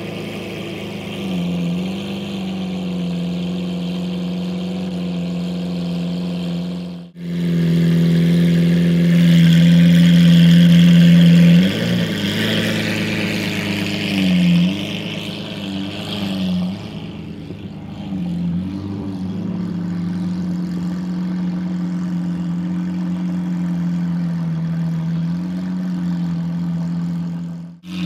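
Lamborghini Aventador LP700-4's 6.5-litre naturally aspirated V12, fitted with an Akrapovic exhaust, idling steadily with a few short throttle blips: one about a second and a half in, then three more after the middle. The sound drops out for a moment about seven seconds in and again at the very end.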